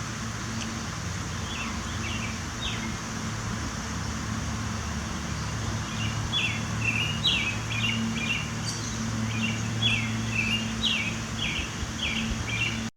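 Bird chirps: short, high notes, a few at first, then a quick run of many from about halfway through, over a steady low hum. The sound cuts off suddenly at the very end.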